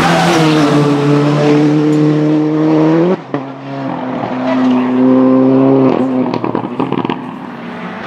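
Fiat 124 Abarth Rally R-GT's 1.8-litre turbocharged engine at full throttle, the note climbing steadily for about three seconds and then cutting off abruptly. A second run at high, steady revs follows and ends about six seconds in with a short spell of sharp crackles.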